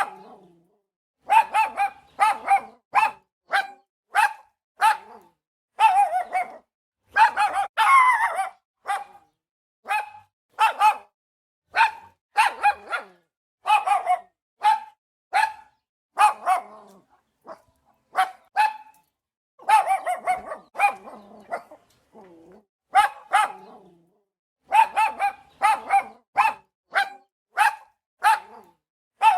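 A dog barking over and over in quick runs of short, sharp barks, with a few short pauses between the runs.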